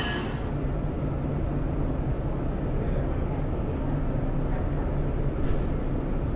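Shanghai Metro 07A02 electric train running, a steady low rumble with a faint steady hum under it. A thin wheel squeal dies away about half a second in.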